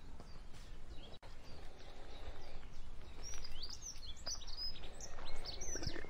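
Cattle grazing: short tearing and crunching clicks of grass being pulled and chewed over a low rumble. Small birds chirp from about halfway through, and the sound drops out for an instant about a second in.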